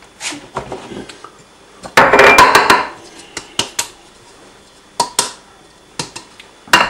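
Handling noises of a pour-over coffee filter cone on its dish: several sharp knocks and clinks as it is set down and adjusted, and about two seconds in a second-long burst of paper rustling as a paper filter is opened and fitted into the cone.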